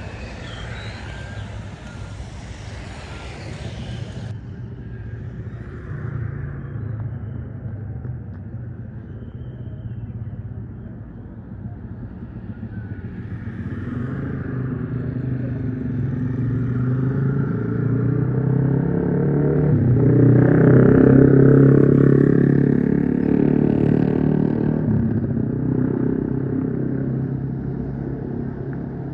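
A motor vehicle's engine running steadily, getting louder as it approaches, loudest about two-thirds of the way through, then fading as it passes by.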